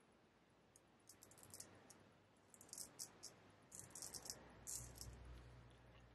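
Straight razor blade scraping through lathered stubble on the cheek in a run of short, faint strokes, each a brief crisp rasp, starting about a second in and coming thicker toward the middle.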